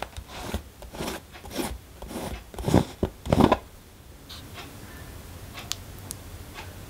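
A screw-on lid being twisted off a glass jar by hand: a run of short scraping turns, the loudest two about three seconds in, then only faint handling clicks.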